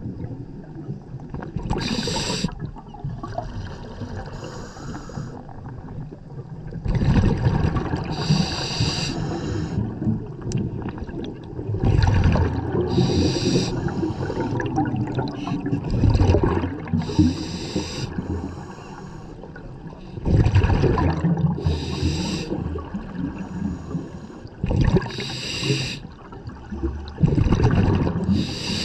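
Scuba regulator breathing heard underwater: a hiss with each inhalation and a gurgling rush of exhaled bubbles, one breath about every four seconds.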